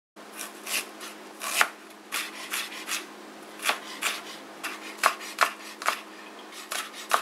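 Kitchen knife chopping peeled ginger into small pieces and then slicing scallion on a plastic cutting board: irregular sharp taps of the blade against the board. A low steady hum runs underneath.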